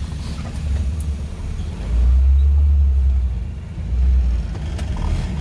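Maruti Suzuki Gypsy King's four-cylinder petrol engine running, heard from inside the cabin: a deep drone that swells louder about two seconds in and again about four seconds in.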